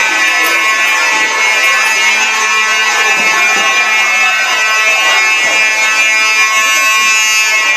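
School fire alarm sounding one steady, loud tone without a break.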